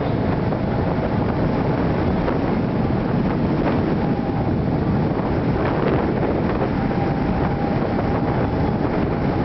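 Wind buffeting the microphone on a moving motorboat, with a faint steady whistle made by the rushing air blowing across a person's open mouth; the whistle comes in briefly about four seconds in and holds again through the last couple of seconds.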